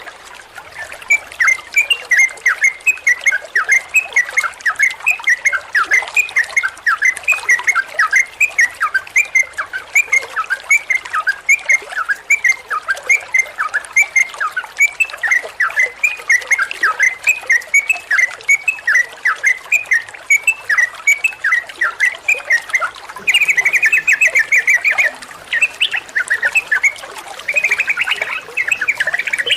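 Yellow-vented bulbul (trucukan) singing without pause: a fast run of short, sharp, repeated notes, several a second, breaking twice near the end into rapid rattling trills.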